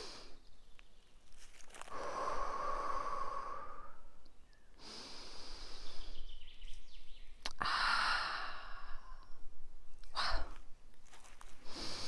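A woman breathing deeply, with several long, audible sighing breaths in and out, each lasting a second or two.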